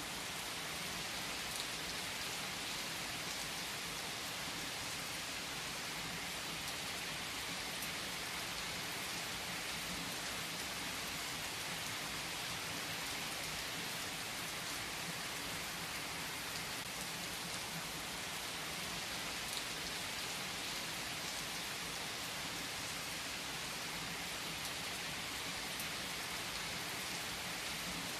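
Steady rain falling, an even hiss that holds at the same level throughout, with a few single drops ticking now and then.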